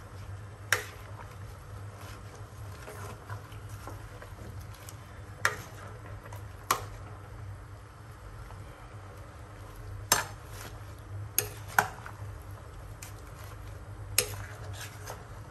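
A metal spoon clinks against a stainless steel pot as lettuce leaves are stirred in it: about seven sharp clinks spread unevenly, over a low steady hum.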